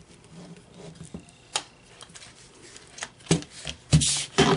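Sharp metal clicks and clacks of an AR-15 being taken down, its upper receiver separated from the lower, with a single click about a second and a half in and a quick run of louder clacks and rattles near the end.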